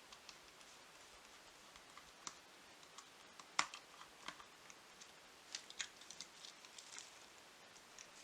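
Faint, scattered clicks and ticks of a small screwdriver and plastic parts being handled while the body screws are taken out of an H0-scale model locomotive, with one sharper click about three and a half seconds in and a quick run of clicks a couple of seconds later.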